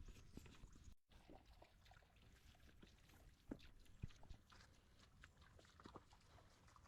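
Faint footsteps of people walking on a trail: a scatter of soft, irregular ticks and knocks. The sound cuts out completely for a moment about a second in.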